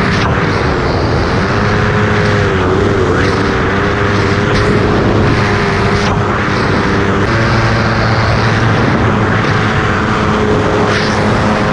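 Polini Thor 250 single-cylinder two-stroke paramotor engine running at steady power, its pitch wavering slightly and dropping a little about seven seconds in, with heavy wind rush over the microphone.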